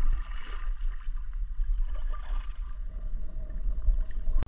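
Kayak paddle strokes through river water, with water lapping at the kayak's hull, over a steady low rumble. There are splashier moments about half a second and two and a half seconds in.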